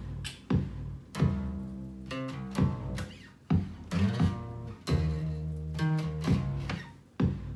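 Electric bass guitar played by hand: a plucked bass line of low notes, each starting with a sharp attack.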